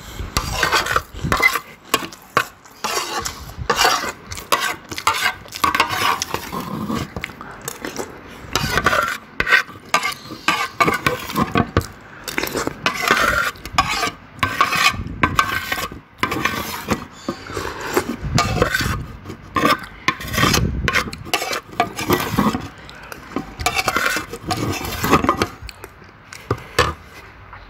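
Metal spoon scraping and clinking against a plate as the last rice and soto ayam broth are gathered up, close-miked for ASMR, with chewing in between.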